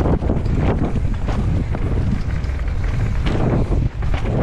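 Mountain bike descending a rocky dirt trail at speed: wind buffeting the action camera's microphone over tyre rumble and the rattle and knocks of the bike hitting rocks and bumps.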